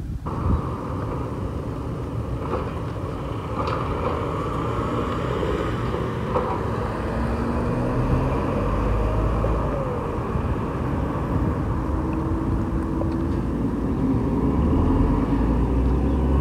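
Automated side-loader garbage truck working a cart at the curb: engine running, its pitch rising and falling as the hydraulic side arm works, with a few light knocks.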